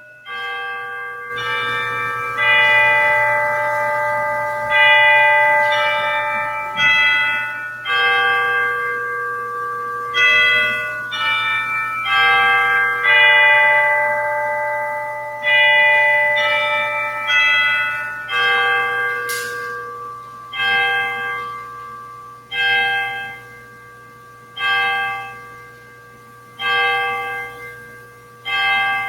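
Church bells ringing: a tune of several struck notes, each ringing on and fading, then, about two-thirds of the way through, a single note tolled repeatedly about every two seconds.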